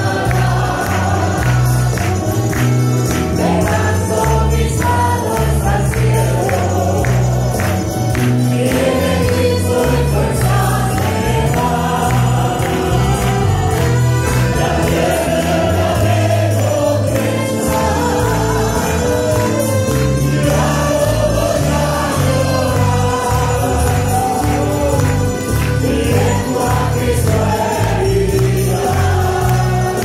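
A congregation sings a Spanish-language gospel chorus behind a lead singer on a microphone. Guitar and accordion accompany, over a steady beat with rhythmic percussion.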